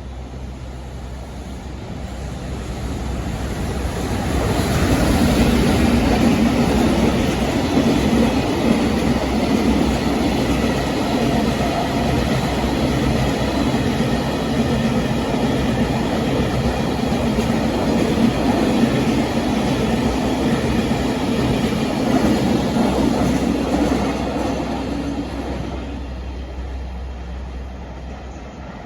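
A long freight train, an electric locomotive hauling its wagons, passing by: the rumble and wheel clatter build over a few seconds, hold loud for about twenty seconds, then fade away.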